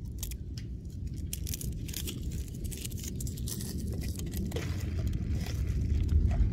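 Thin plastic wrapper on a disposable utensil crinkling and tearing as it is pulled open: a run of short, sharp crackles over a steady low rumble.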